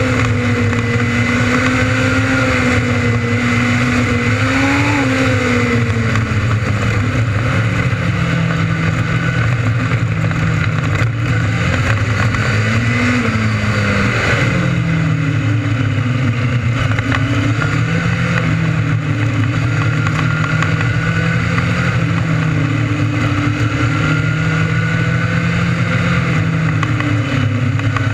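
600cc restricted micro sprint engine racing on a dirt oval, held at high revs, its pitch dipping and climbing again every few seconds as the car goes through the corners.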